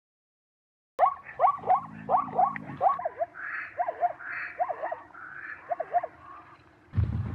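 A run of short animal calls, each a quick upward chirp, repeated several times a second after about a second of silence; near the end a different, deeper sound begins.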